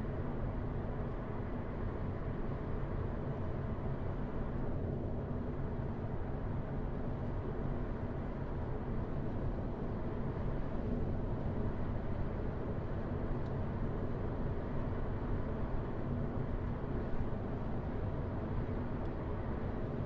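A car driving on suburban roads, with a steady low rumble of engine and tyre noise that does not change.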